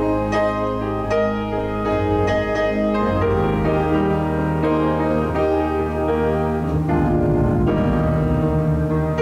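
Slow instrumental keyboard music, held chords over a sustained bass that change every second or so.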